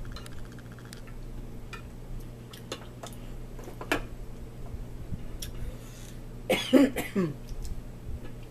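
Scattered light clicks of a spoon and a fork against soup bowls over a steady low hum, with a short cough about six and a half seconds in.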